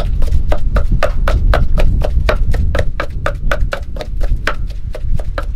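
Wooden pestle pounding in a terracotta mortar, a fast, even run of knocks at about five strokes a second, grinding chilies into a paste.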